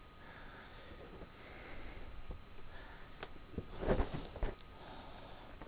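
Low room noise with a few short knocks and clicks, the loudest about four seconds in.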